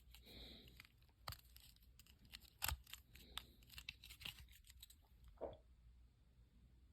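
Faint scattered clicks and taps of a small plastic USB charger being handled, with one sharper click about two and a half seconds in.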